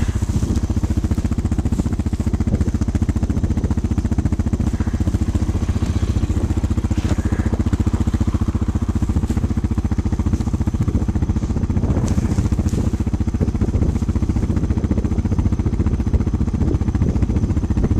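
Snowmobile engine idling steadily, a rapid even putter with no change in speed.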